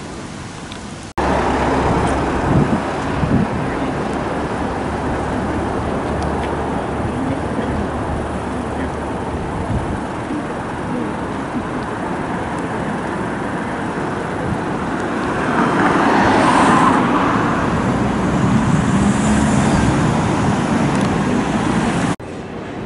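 City street traffic: a steady rush of cars and vans passing on the road, with one vehicle passing louder about two-thirds of the way through. It starts abruptly about a second in and cuts off just before the end.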